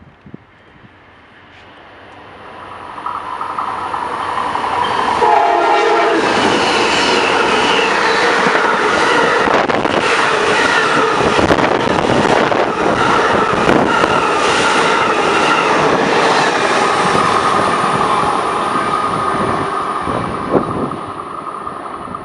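Amtrak passenger train approaching and passing at speed through a station, with its horn sounding and the wheels clicking over the rail joints. It builds over the first few seconds, stays loud for about fifteen seconds as the cars go by, and eases off near the end.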